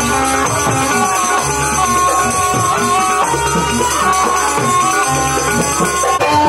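Jaranan accompaniment music: drums and gongs pulsing under a held, ornamented melody line, at a steady level.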